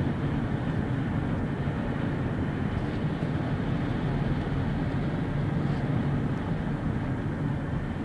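Steady engine hum and road noise heard from inside a moving car.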